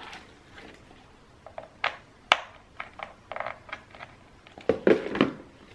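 Handling noise from a plastic UV/LED nail lamp and its power cable: scattered light clicks and knocks, a sharper click about two seconds in, and louder handling sounds near the end.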